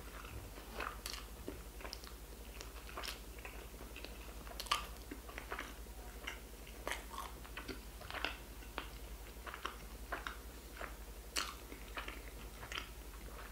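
Crumpled clear plastic wrap on a plastic plate crinkling under fingers: faint, irregular crackles and clicks.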